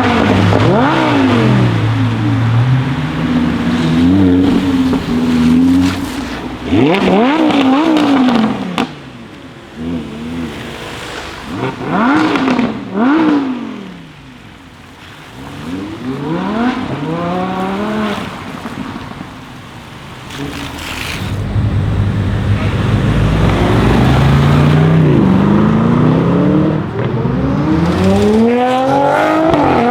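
Lamborghini Huracán's 5.2-litre V10 exhaust: a run of revs that climb and drop back, with short crackles in the gaps between them. From about two-thirds of the way in it pulls hard in one long acceleration, its pitch stepping up through the gear changes.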